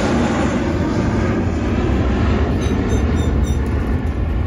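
Jet airliner climbing away just after takeoff: a loud, steady rumble of jet engine noise, heaviest in the low end, whose higher part thins over the last couple of seconds as the plane moves off.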